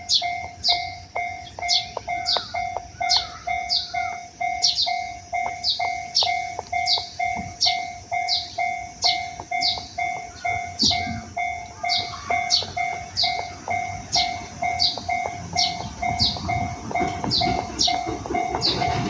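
Japanese railway level-crossing warning bell ringing in a steady rhythm, a little under two strikes a second. About sixteen seconds in, the rumble of an approaching train rises beneath it.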